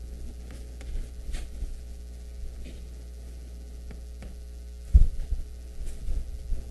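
Steady low electrical hum of room or recording, with a few faint ticks and a single dull low thump about five seconds in.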